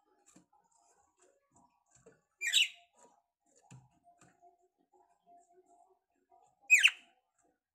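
Red-cowled cardinal (galo-de-campina) giving two short, sharp chirp calls about four seconds apart, the second sweeping down in pitch.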